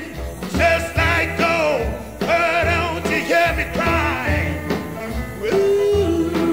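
Background music: a song with a singing voice over a steady bass beat, with a long held note near the end.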